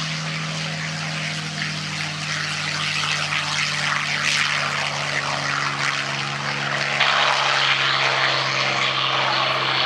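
World War II warbird piston engines, a P-51 Mustang's liquid-cooled V12 and a B-25's twin 14-cylinder air-cooled radials, running with a steady drone. They grow louder about seven seconds in.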